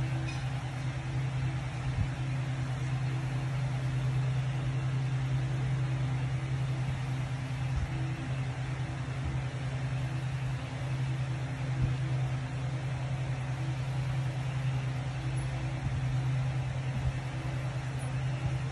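A steady low mechanical hum with a faint hiss, unchanging throughout, with a few faint short ticks.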